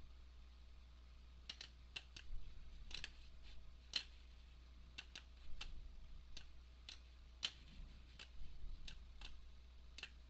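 Computer mouse buttons clicking irregularly, several times in quick pairs, as objects are selected and dragged, over a faint steady low hum.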